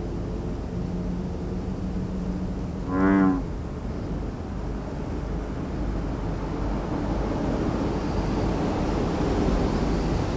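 Steady low outdoor background rumble with a faint engine-like hum. About three seconds in, a single brief pitched tone with overtones is the loudest sound.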